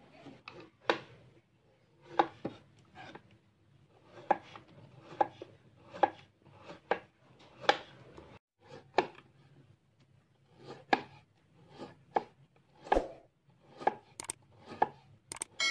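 Large kitchen knife chopping through peeled cassava roots onto a wooden board, each cut ending in a sharp knock of the blade on the board, about once a second with a short pause midway.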